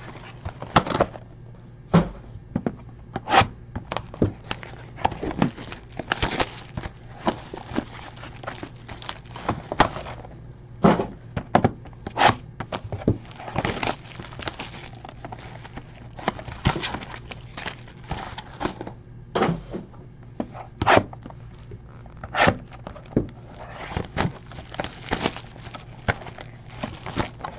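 Foil trading-card packs and clear plastic wrap being handled at close range: irregular crinkling and crackling, with light knocks of the cardboard box and packs against the table.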